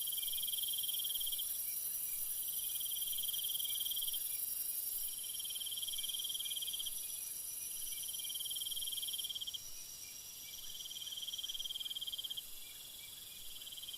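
Crickets chirping in a steady cycle of high, pulsing trills, each about a second and a half long with short pauses between them.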